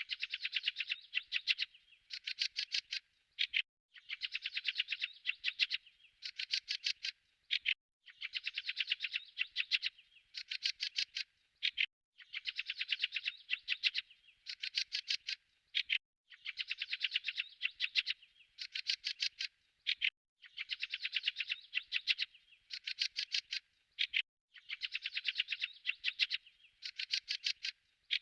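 A bird chirping in rapid, high trilled phrases, one longer phrase followed by two shorter ones, the same pattern repeating about every four seconds.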